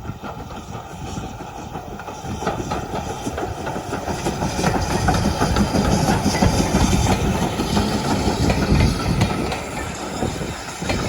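A train running along the track with a clickety-clack of wheels on rail joints, growing louder to a peak past the middle and then fading a little as it passes.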